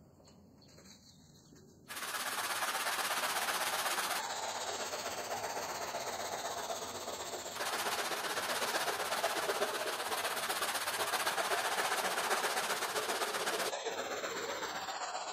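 A faint pour of liquid soap onto a rug, then about two seconds in a stiff plastic hand brush starts scrubbing the soapy, foamed rug. The scrubbing is sped up into a dense, rapid scratching, with abrupt jumps in level where the footage is cut.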